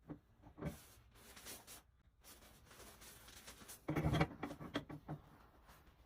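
Handling noises from fitting a shower-valve cartridge: a few light clicks and scraping, then a louder cluster of knocks about four seconds in.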